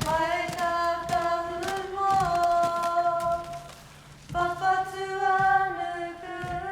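Voices singing long, held notes in two drawn-out phrases, with a short break a little past the middle.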